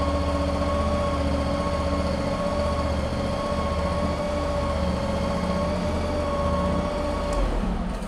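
Bomac TX-323S mini skid steer loader's 25 hp V-twin engine running steadily as the loader arms raise the bucket. A steady high whine runs over the engine and cuts off with a click about seven seconds in.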